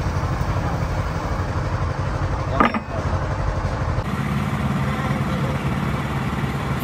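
A truck engine running steadily, with a brief sharp sound about two and a half seconds in; the engine note changes abruptly about four seconds in.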